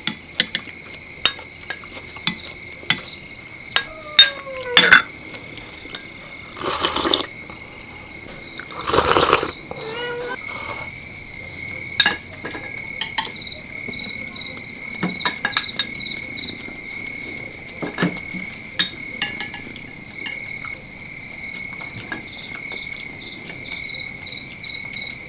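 Steady, high-pitched insect chirring with a pulsing upper trill, scattered with sharp clicks and two brief louder noisy bursts about seven and nine seconds in.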